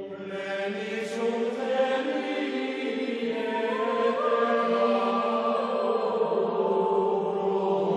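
Background music: a chant with long held notes, the melody stepping up in pitch about halfway through.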